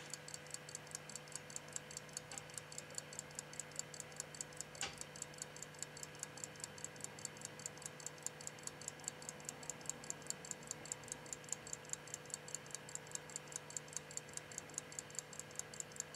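Key-wound silver pocket watch movement with reversing pinion, a 1901 J.G. Graves of Sheffield, ticking evenly at about five ticks a second: freshly serviced and going well.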